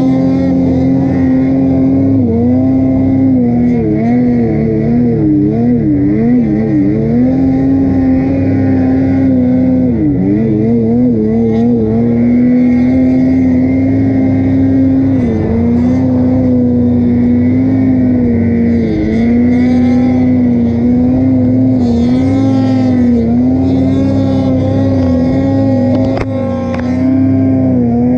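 Two-stroke snowmobile engine running hard at high, nearly steady revs. Its pitch wavers and dips several times in the first ten seconds, then holds steady with small dips.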